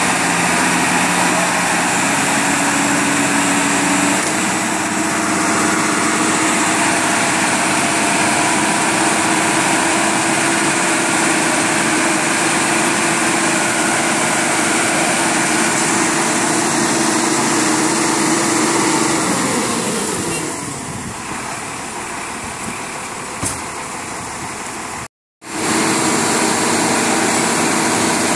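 Vehicle engine running steadily, its pitch and level dropping about twenty seconds in, with a brief cut to silence near the end.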